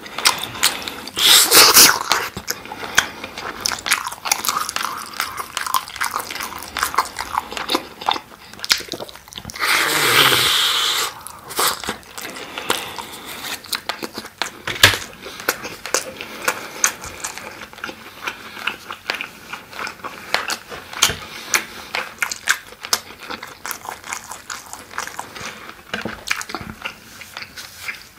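Close-miked biting and wet chewing of sauced grilled chicken skewer meat, with many small mouth clicks and smacks. Two louder noisy bites stand out, about a second in and around ten seconds in.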